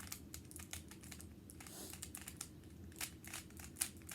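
Plastic Rubik's cube being scrambled by hand: quick, irregular clicking and clacking as its layers are turned.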